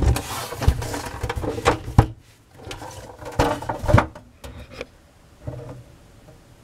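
Handling noise from a Zenith F615 tube radio's cabinet being gripped, shifted and turned on a tabletop: rubbing and scraping with several knocks in the first four seconds, then only faint shuffling.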